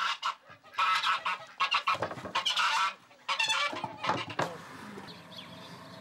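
Domestic poultry calling: a run of loud, harsh calls for about three seconds, then fainter calls.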